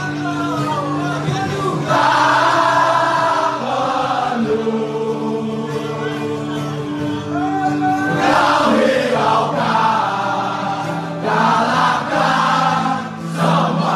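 Crowd of football supporters singing a chant together in unison, loud and sustained, with fuller, louder phrases about two and eight seconds in.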